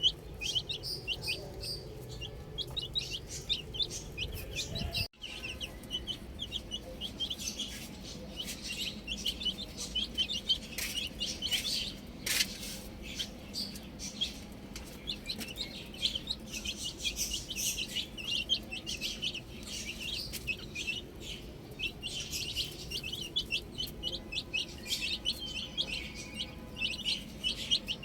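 A group of domestic chicks peeping continuously: many rapid, short, high peeps overlapping, with a brief break about five seconds in.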